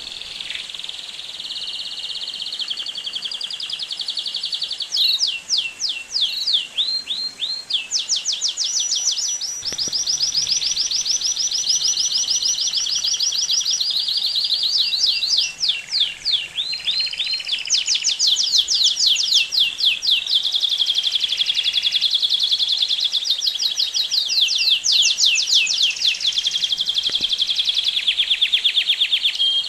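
Domestic canary singing a long unbroken song. It shifts every second or two between fast trills of repeated sweeping notes and smoother rolling phrases.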